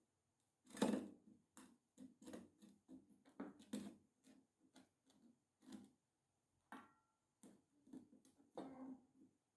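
Soft, irregular knocks and taps of a stainless-steel bowl and a drinking glass being handled while bread is mixed with water in the bowl, the loudest knock about a second in. A brief ringing clink near seven seconds in.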